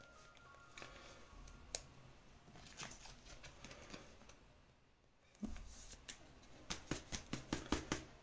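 Faint clicks and light tapping of trading cards and plastic card holders being handled, a few scattered at first, then a quick run of about ten sharp clicks near the end.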